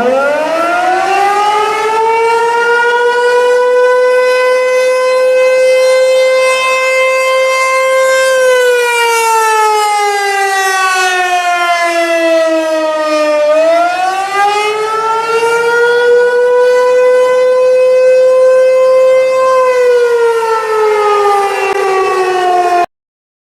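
Civil defense siren winding up from a low pitch to a steady tone and holding it. It then slowly falls and rises again in one wail, holds, and falls once more before cutting off suddenly near the end.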